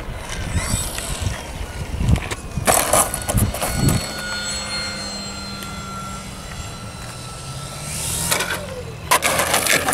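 Radio-controlled model airplanes landing roughly: a series of knocks and scraping noises at the start. After that, a model plane's motor hums steadily for several seconds, and more loud rough noises come near the end.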